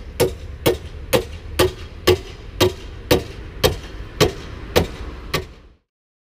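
A steady percussive beat of hard knocks, about two a second, each ringing briefly, over a low hum; it cuts off suddenly near the end.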